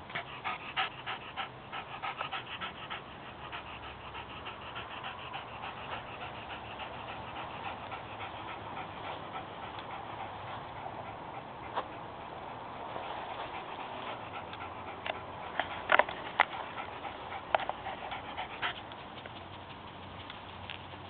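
A chonzer (schnauzer–bichon mix) dog panting quickly and rhythmically, worn out from running after her ball. A few louder, sharper sounds come about three quarters of the way through.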